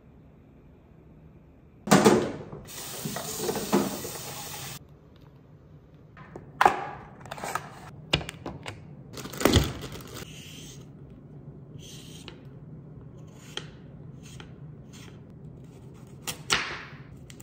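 Home kitchen food-prep noises over a low steady hum. A hiss lasts about three seconds and cuts off sharply, then packaging crinkles and knocks as packets and a box are handled, and near the end there are a few knife strokes on a wooden cutting board as carrots are sliced.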